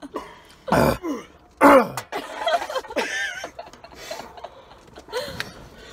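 A person coughing and clearing the throat, two hard coughs about a second apart, then quieter vocal sounds. The throat is burning from ghost pepper powder.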